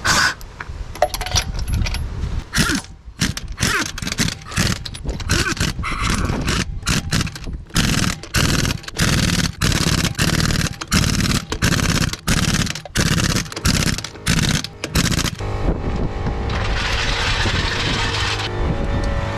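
Pneumatic impact wrench on lug nuts, firing in many short rattling bursts with brief pauses between them, then a steadier hiss near the end over a steady low hum.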